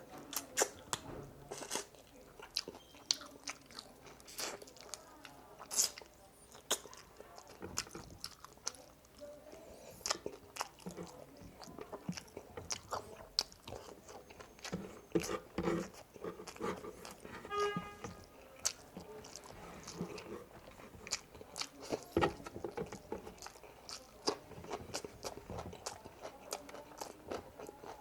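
A person chewing and biting into spicy frog legs close to the microphone, with frequent irregular crunches and wet mouth clicks.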